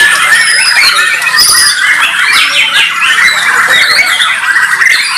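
Several caged Bornean white-rumped shamas (murai batu) singing at once in competition, a dense, unbroken tangle of loud whistles, trills and quick rising and falling notes.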